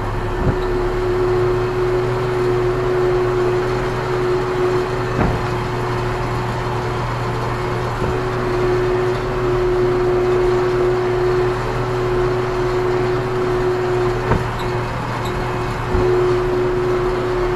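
Ursus C-392 tractor engine running steadily under load while pulling a five-furrow plough through dry ground, a constant drone broken by a few short knocks.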